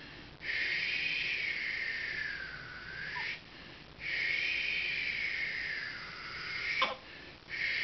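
Infant screaming in long, high-pitched wails like a pterodactyl's screech: two cries of about three seconds each, each followed by a short gasp for breath, and a third beginning near the end. It is a hungry baby's cry while she waits to be fed.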